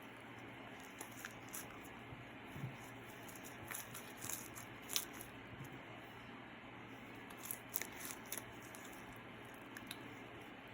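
Faint, scattered soft squishes and small clicks of slime being handled by hand, the loudest about halfway through.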